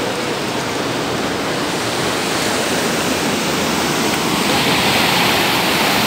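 Swollen floodwater rushing through an open storm-drain channel, a steady, loud churning of turbulent water that grows a little louder and brighter about four seconds in.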